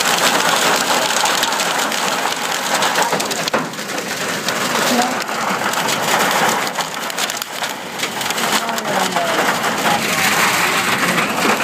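Heavy hail and rain pelting down: a loud, dense hiss shot through with countless sharp ticks of hailstones striking.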